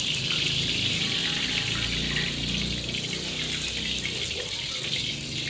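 Hot cooking oil sizzling in a wok, a steady hiss as a ladle swirls the oil around the pan.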